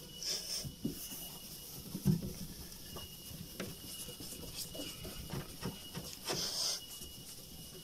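Cloth rag rubbing over a fiberglass gelcoat surface by hand, buffing the finished repair in quick, irregular strokes with light knocks and a longer brushing swipe about six and a half seconds in.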